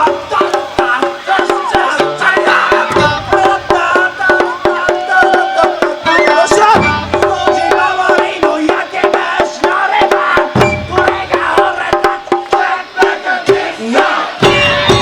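Live Japanese festival music from a taiko drum band: flat taiko drums struck in a fast, dense stream of strokes, with a wavering melody and shouted calls over them.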